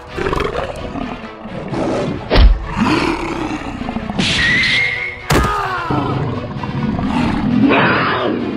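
Animal roars and growls over background music, with two heavy thuds, one about two and a half seconds in and one a little after five seconds.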